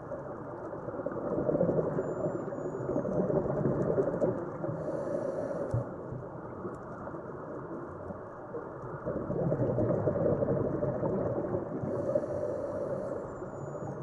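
Muffled underwater rush of a scuba diver's breathing: exhaled bubbles from the regulator swell up twice, each followed by a short hiss.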